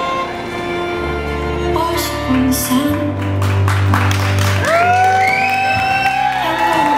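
Music: held bowed-string notes fade at the start, then a song comes in with bass and a beat, and a singing voice enters past halfway.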